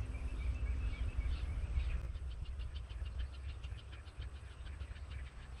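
Rapid chirping from wildlife, about five short chirps a second growing clearer after the first couple of seconds, over a low steady rumble.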